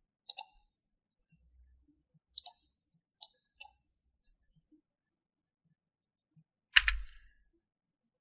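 Computer mouse clicks and keyboard key presses, about six in all, sharp and widely spaced with one quick pair. The loudest, a fuller keystroke with a dull thud, comes near the end.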